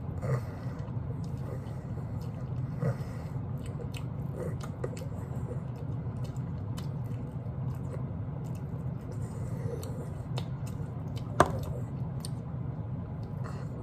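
Close-up mouth sounds of a person biting and chewing meat off barbecue ribs, with small wet clicks over a steady low hum. One sharp click comes a little after eleven seconds.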